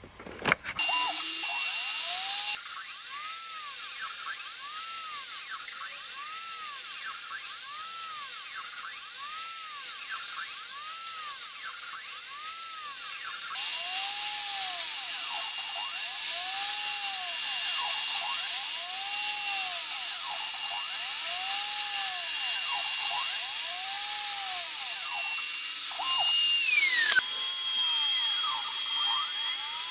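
CNC router spindle running at high speed, its bit routing a circular groove into an end-grain wooden board: a steady high-pitched whine. The tone changes abruptly a few times, and near the end the pitch briefly slides down.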